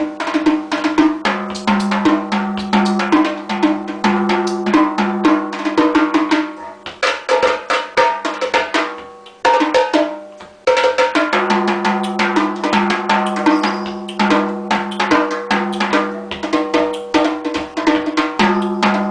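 Drum solo: fast, dense drum strokes with pitched drum tones, thinning out briefly about halfway through before picking up again.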